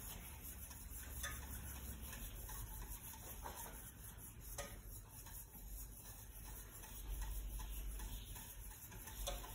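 A utensil stirring sauce in a saucepan, with a few faint clinks against the pot and a low steady hum underneath.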